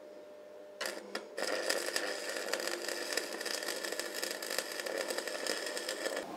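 Stick (MMA) welding arc on a 2.4 mm 6013 electrode: the rod strikes twice about a second in, then the arc crackles and sizzles steadily as a build-up bead is laid, cutting off just before the end.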